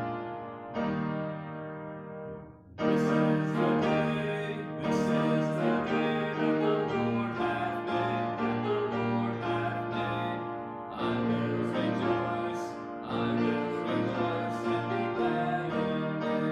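Piano playing chords as a hymn accompaniment, quieter at first and then much louder from about three seconds in.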